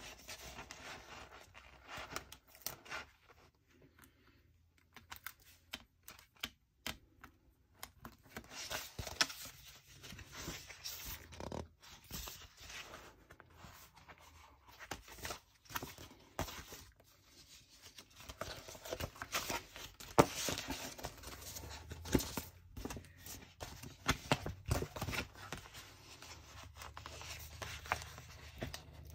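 Sticker sheets and paper being handled on a desk: irregular rustling, scraping and peeling, with small taps and clicks.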